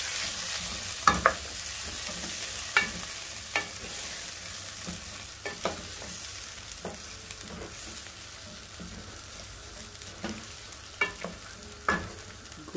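Wooden spoon stirring potatoes in tomato sauce in a pot, with irregular knocks of the spoon against the pot over a steady sizzle from the cooking sauce.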